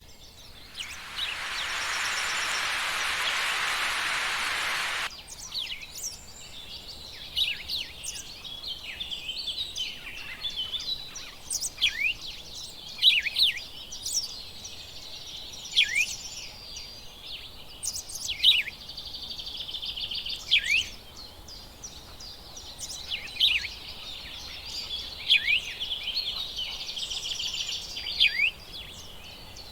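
Several birds chirping and chattering, with many short, sharp chirps that drop in pitch, repeated throughout. It is preceded by a loud steady hiss that cuts off suddenly about five seconds in.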